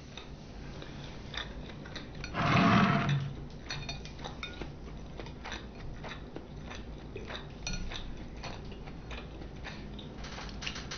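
A person eating sushi and sashimi: chewing with many small clicks of utensils against dishes. About two seconds in comes one louder, rough sound lasting about a second.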